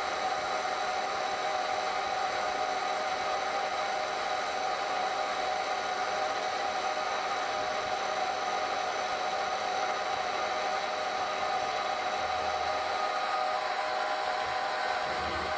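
Vertical milling machine running with a homemade fly cutter taking a facing cut across a metal plate: a steady machine whir with a constant whine through it.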